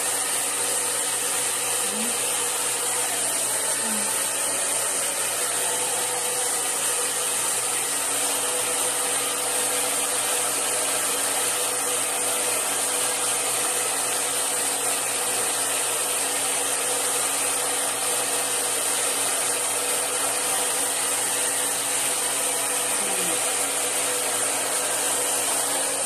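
A handheld hair dryer blowing steadily: a constant rush of air with a steady motor hum underneath, unchanging throughout.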